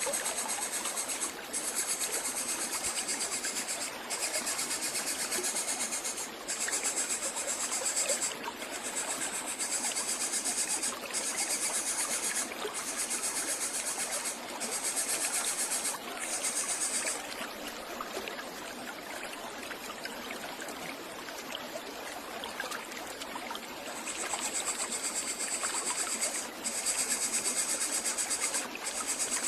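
Insects buzzing in high-pitched stretches of a second or two with short breaks, over a steady hiss; the buzzing drops out for several seconds past the middle.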